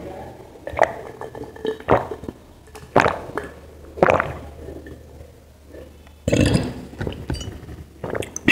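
A person gulping a drink from a glass jar, with about one loud swallow a second, followed about six seconds in by a short, noisy breath out.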